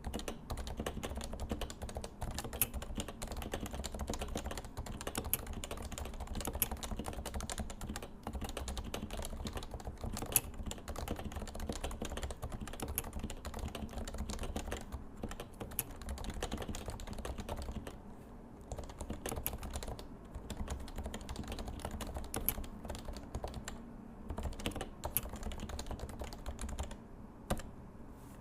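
Realforce 87U tenkeyless keyboard with 45 g Topre switches being typed on in a fast, continuous stream of keystrokes. There are a few brief pauses, and the typing stops shortly before the end.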